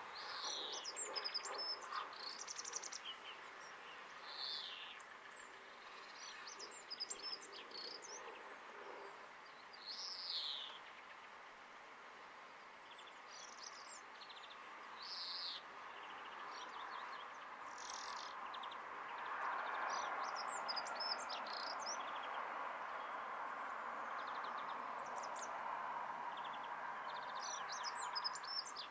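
Several British garden birds singing and calling: high twittering phrases and short downward-sliding calls, over a steady background hiss that grows louder about two-thirds of the way through.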